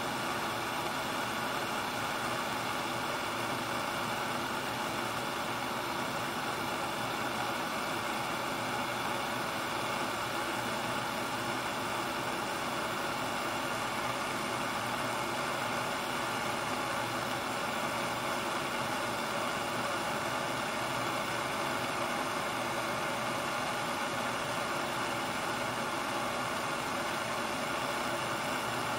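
Light, steady water spray from a car wash hitting a car's body, heard from inside the car as an even hiss that does not let up.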